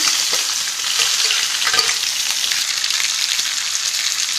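Sliced shallots sizzling steadily in hot oil with the tempering spices and curry leaves in a kadai, stirred with a steel ladle. This is the tadka (thalippu) stage of making sambar.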